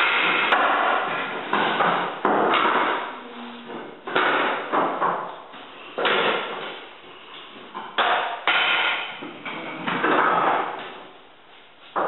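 Hardwood flooring boards being laid out on the floor by hand: irregular wooden knocks and clatters, about one every second or two, each dying away briefly.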